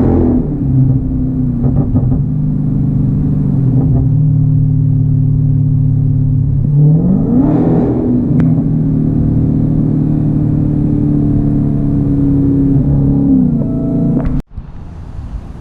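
Dodge Challenger Hellcat's supercharged V8 pulling while driving: revs climb at the start and again about seven seconds in, hold steady, then ease off near thirteen seconds. The sound cuts off abruptly a second or so before the end.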